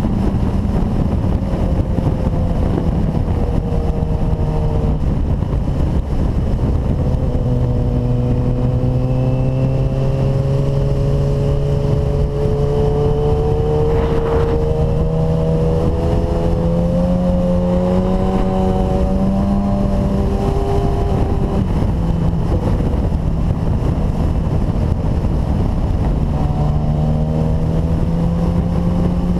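Sport motorcycle engine running at speed through a series of curves, its pitch falling and rising several times as the throttle is rolled off and on, over a steady rush of wind and road noise. A brief knock about halfway through.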